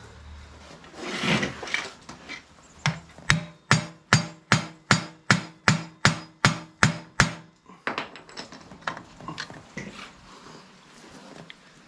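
About a dozen hammer blows on metal in a steady run, a little over two a second, each with a short ring, driving a wedge in to pry a part of a 250cc mini chopper apart. A brief scrape comes about a second in, and softer knocks follow the blows.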